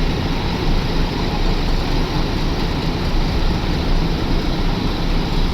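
A bus's heavy diesel engine idling steadily at an even speed.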